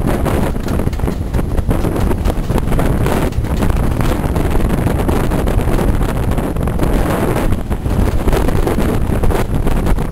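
Wind buffeting the microphone held out of a moving Mk1 carriage's window, over the steady low rumble of the train running.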